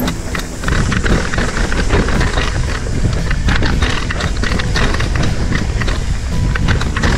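Mountain bike riding down a dirt singletrack: a steady low rumble of tyres over dirt and roots, with constant rattling and clattering from the bike over bumps.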